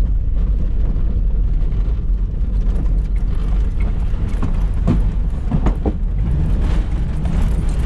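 Cabin rumble of a Mazda MX-5 driving over a rough wet-clay track, with scattered knocks and rattles.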